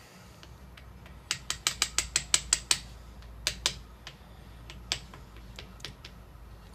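Metal-lathe mechanism clicking as the carriage is wound along against a dial indicator: a quick run of about nine sharp metallic clicks, about six a second, then a few scattered single clicks.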